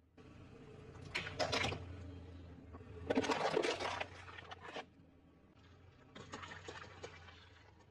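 Car tyre rolling over objects laid on asphalt and crushing them, in three separate bursts of crunching and crackling over a low rumble.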